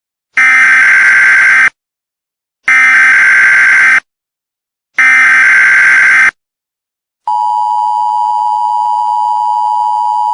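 Emergency Alert System SAME header: three identical screeching bursts of digital data tones, each over a second long and about a second apart. About seven seconds in, the steady two-tone EAS attention signal starts.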